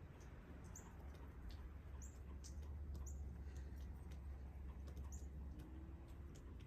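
Faint high chirps from a small bird, about five short notes spread across a few seconds, over a steady low rumble and scattered faint ticks.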